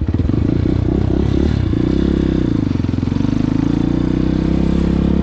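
250 dirt bike engine running under way. Its pitch drops as the throttle eases about half a second in, climbs again around two seconds in, then holds fairly steady.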